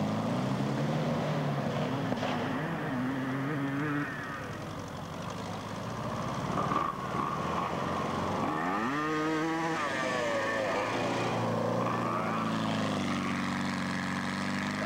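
Small engine of an open-frame buggy running as it drives around, its note rising and falling with the throttle. It fades briefly about four seconds in, then revs up sharply and falls back about nine seconds in.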